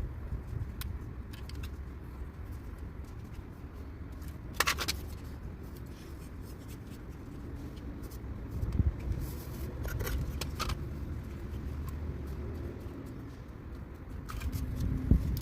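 Hands fitting strips of dryer felt onto a dryer part: scattered light clicks and a few short scrapes and rustles over a steady low rumble.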